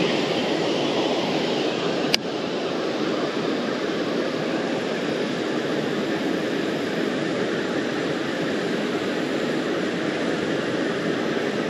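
Steady rush of flowing water, an even noise with no rise or fall, with a single sharp click about two seconds in.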